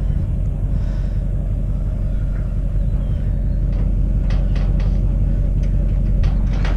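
Pickup truck engine running steadily with a low rumble. A series of short sharp knocks comes in over it in the second half.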